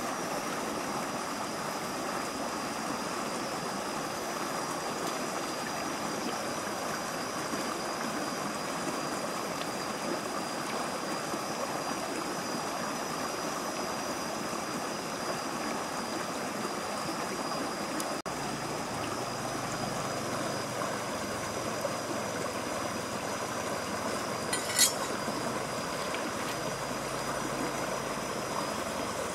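Shallow river water rushing and burbling steadily over rocks, with a thin steady high tone over it. A single sharp click comes near the end.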